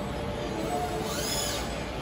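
All-electric injection molding machine running, its servo drives giving a high whine that rises and falls in pitch about a second in, over a steady mechanical hum.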